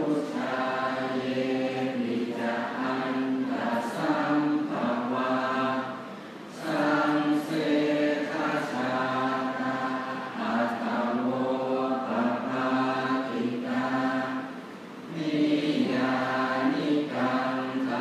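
Buddhist morning chanting (tham wat chao): a group of voices chanting in unison on a few held pitches, in long phrases with short pauses for breath about six seconds and fifteen seconds in.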